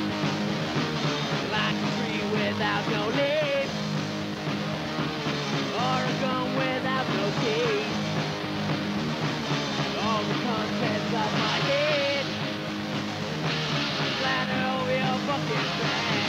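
Three-piece pop punk band playing a song on a mid-1990s demo recording. The band plays dense and steady throughout, with a wavering, bending melody line running over the chords.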